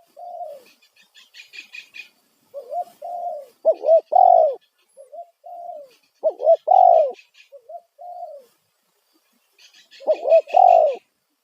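Spotted dove (tekukur) cooing loud, repeated phrases of short arched coos in groups, the lure call used to draw wild doves to respond. Bursts of high chirping come in between and over the coos three times.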